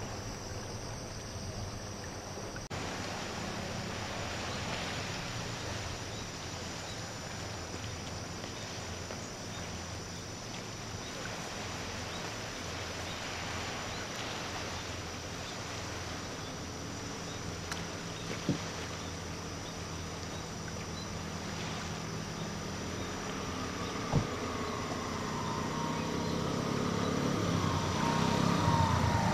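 Engine hum from a distant motor under a steady outdoor hiss. The engine grows louder near the end, with a whine that drops in pitch as it passes close. Two brief sharp clicks come in between.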